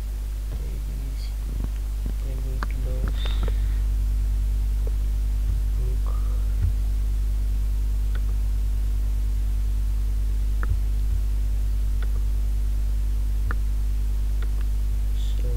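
Steady low electrical mains hum in the recording, with a few faint clicks scattered through it.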